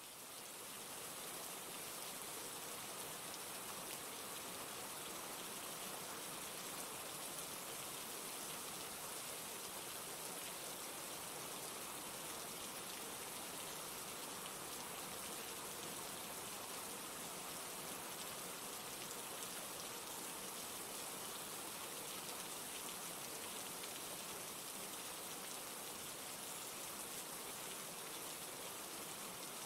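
Steady rain falling, an even hiss of many drops, fading in over the first second.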